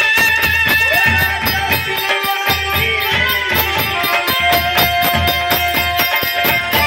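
Live Bhojpuri folk music: a held, stepwise melody over a steady drum beat with jingling percussion.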